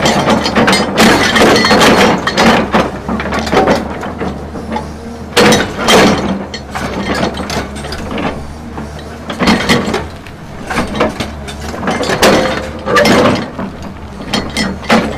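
Excavator ripper tooth scraping and breaking into frozen ground: irregular grinding and cracking bursts over the excavator's steady engine hum.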